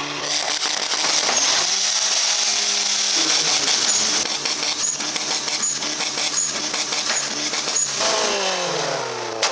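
Car engine running hard and revving, its pitch holding steady for stretches, falling away about eight seconds in and climbing again near the end.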